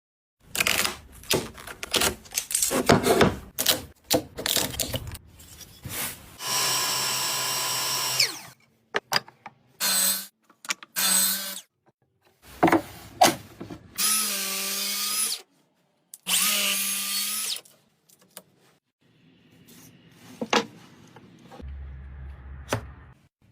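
A power tool running in several short bursts of one to two seconds, its pitch wavering on some of them as it takes load. Before the bursts there is a quick series of knocks and scrapes of wood being handled.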